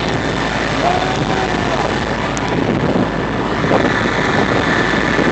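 Fire truck's engine running steadily to drive its roof water cannon, with the steady rush of the water spray.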